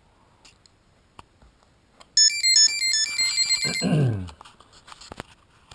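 3DR Pixhawk flight controller's piezo buzzer playing its power-up tune as the battery is connected: a quick run of stepped beeping notes lasting about a second and a half, followed by a low tone sliding downward. A few soft clicks from the battery plug come before it.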